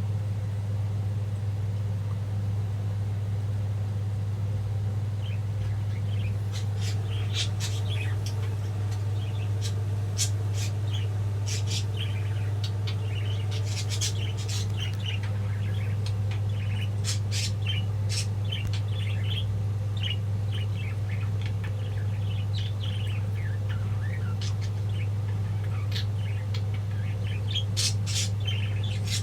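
Pet budgies chirping and chattering in quick runs of short, high calls, starting about six seconds in and thickest in the middle and near the end, over a steady low hum.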